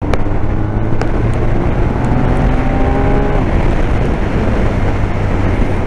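BMW R1250R's boxer twin engine pulling under acceleration, heard from inside the rider's helmet under a steady rush of wind noise. Its note climbs for a second or so past the middle and then breaks off, with a sharp click about a second in.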